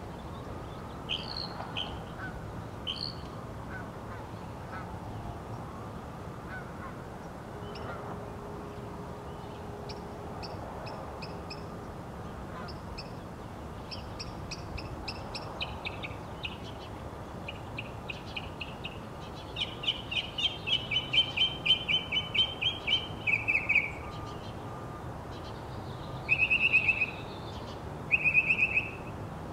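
Northern mockingbird singing: faint scattered phrases at first, then a fast run of rapidly repeated notes about twenty seconds in, the loudest part, followed by three short, loud, repeated phrases near the end.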